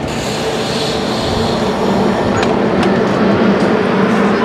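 Caltrain bilevel passenger cars rolling slowly past, with a steady low hum, a brief high hiss early on and a few sharp clicks of the wheels over rail joints in the second half.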